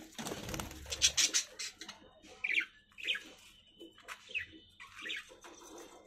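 Budgerigars chirping: four short, falling chirps spaced about a second apart, starting about two and a half seconds in. Before them, a brief burst of rustling noise in the first second is the loudest thing.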